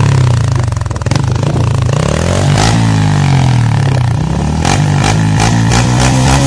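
Honda XRM125 Fi's single-cylinder four-stroke engine breathing through an Organsport aftermarket power pipe with its silencer insert fitted, being revved while standing: revs fall off about a second in, then the throttle is blipped up and down, with a run of quick blips near the end.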